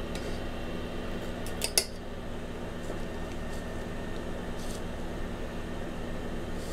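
Stand mixer motor running steadily, its wire whisk beating cooked-flour frosting as butter is whipped in, with a short cluster of sharp clicks about a second and a half in.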